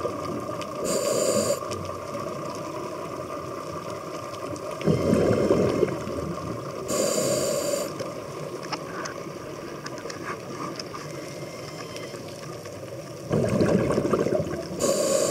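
A scuba diver breathing through a regulator underwater: a short hissing inhale about a second in, again around seven seconds and at the very end, and a rumbling, crackling burst of exhaled bubbles about five seconds in and again near the end.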